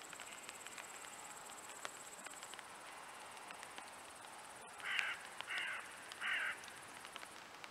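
Three short, harsh crow caws in quick succession about five seconds in, over a steady low hiss with scattered light ticks.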